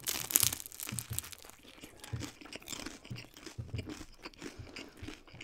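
Crisp crunch of a bite into a fried lumpia (Filipino spring roll), close-miked, at the start, followed by soft, irregular chewing of the mouthful.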